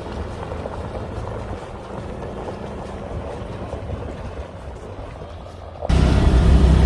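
Farm vehicle engine running with a steady low drone. About six seconds in, it abruptly becomes much louder.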